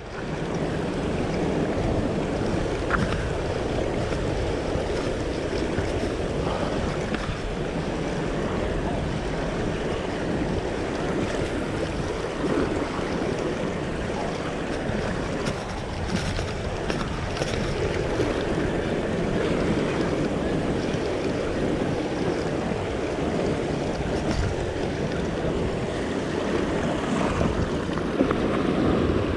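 Ocean swell washing and breaking against a sandstone rock ledge, with wind buffeting the microphone.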